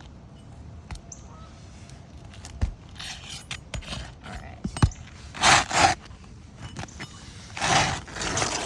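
Roof shingles scraping as a shingle is worked loose and pulled out: three rough scraping passages, the loudest about halfway through, with a few sharp clicks between them.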